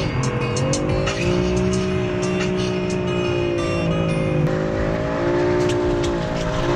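A car engine held at high, fairly steady revs, its pitch wavering slightly up and down, with a brief dip and shift about four and a half seconds in.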